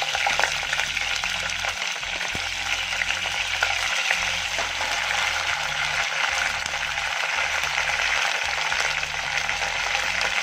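Crab pieces frying in hot oil in a pan: a steady sizzling hiss with scattered small clicks.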